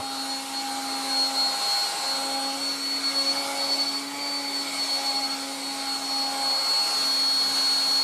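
1960s Dateline DLMD hairdryer running steadily, aimed at hair: a rush of air with a steady motor hum and a thin high whine.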